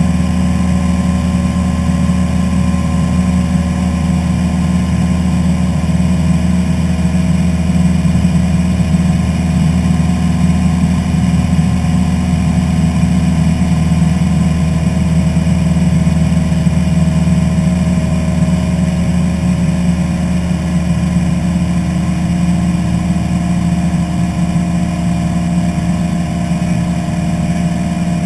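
Single-engine piston airplane's engine and propeller running steadily in cruise, a constant droning hum heard from inside the cockpit.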